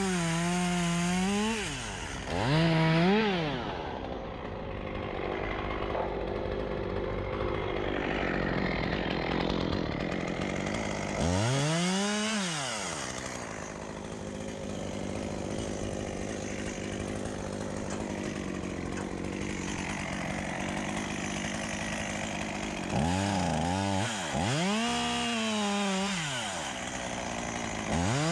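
Two-stroke chainsaw revved several times, its pitch rising and falling with each blip of the throttle, running more slowly in between.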